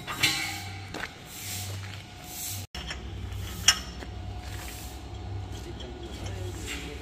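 Metal clinks and knocks from work on steel parts, over a steady low hum, with one sharp knock about halfway through.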